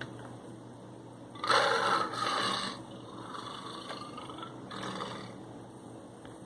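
Lion roaring: a long, loud, breathy roar about a second and a half in, then a fainter drawn-out call, and a shorter roar near five seconds.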